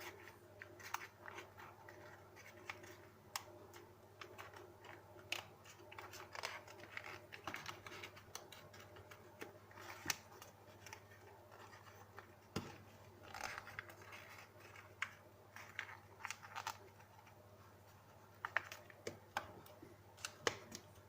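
Sheet of paper being folded and creased by hand: faint, irregular crinkles, rustles and sharp creasing clicks, over a steady low hum.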